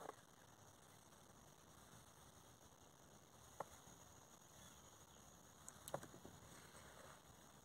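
Near silence with a faint steady hiss, broken by two brief faint clicks, one a little past the middle and another about six seconds in.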